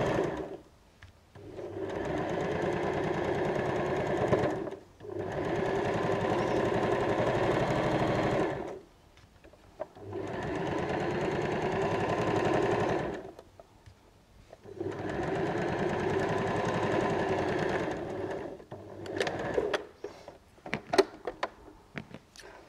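Janome domestic electric sewing machine stitching a straight seam, running in several bursts of three to four seconds with short pauses between. Near the end a scatter of sharp clicks and taps follows.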